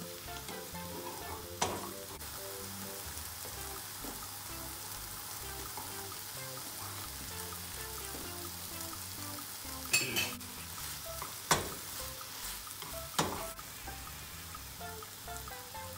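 Diced peppers and kebab patties sizzling in frying pans, a steady hiss. A utensil knocks sharply against the pan about a second and a half in, then three more times between about 10 and 13 seconds in.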